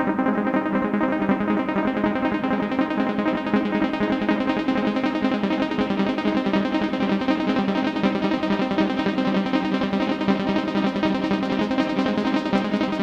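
Background music with steady, sustained chords.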